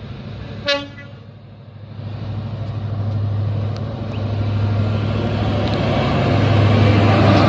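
A single short, sharp toot from a train horn about a second in, followed by the low, steady rumble of a locomotive engine that grows louder.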